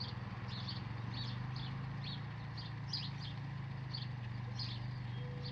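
A bird chirping, short high chirps repeating about twice a second, over a steady low hum.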